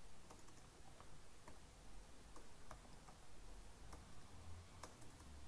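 Faint, irregular clicks of a computer keyboard being typed on, over quiet room tone.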